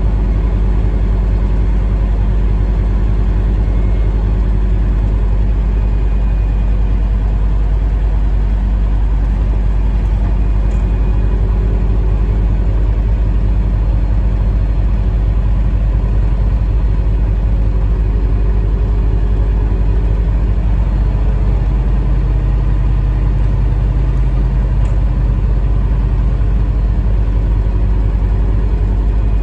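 Semi-truck diesel engine running steadily at low speed, a continuous low drone, its note shifting slightly about two-thirds of the way through.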